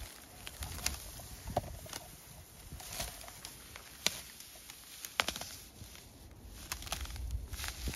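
Footsteps through dry grass and brushwood with a cloth sheet dragging over the ground, giving irregular crackles and snaps of dry stems and twigs.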